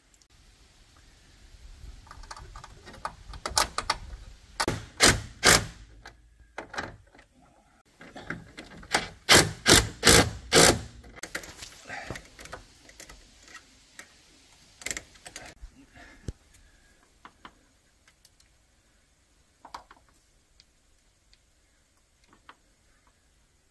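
Quick series of sharp knocks and clatter in two bouts a few seconds apart, from hands-on work in the shop, followed by scattered faint taps.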